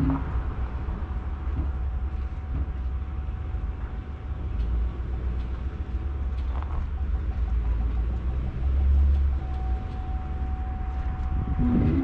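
Pickup truck running at low speed while reversing a boat trailer, a steady low rumble that swells briefly near the end. A faint electronic tone sounds over it, steady at times and at times beeping rapidly.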